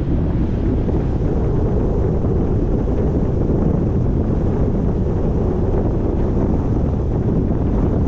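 Steady low rumble of wind buffeting the microphone, without a break.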